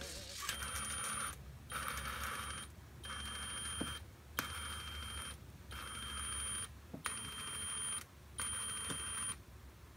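Piezo buzzer beeping one high tone about seven times, each beep roughly a second long with short gaps between, and a few faint clicks in between.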